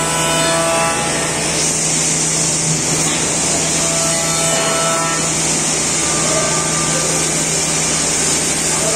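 Bacci Master five-axis CNC machining centre routing a wooden chair seat: the spindle and cutter running steadily through the wood, a continuous high hiss over a constant low hum.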